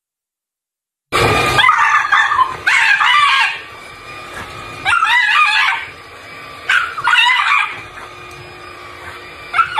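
Dog barking at a running cordless stick vacuum: about five long, wavering barks, starting about a second in, with the vacuum's steady running sound between them.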